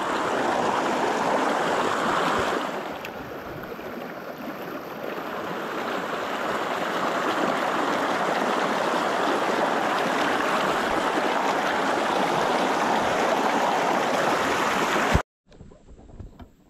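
Small rocky stream rushing over boulders in shallow rapids: a steady wash of water noise, softer for a couple of seconds a few seconds in. It cuts off suddenly near the end, leaving only faint outdoor sounds.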